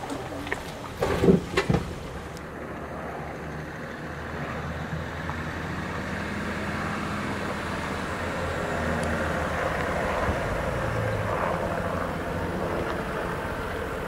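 GMC Sierra AT4 pickup with its 3.0L Duramax turbo-diesel crawling slowly off-road, the engine running low and steady under wind noise on the microphone. A few sharp knocks come in the first two seconds.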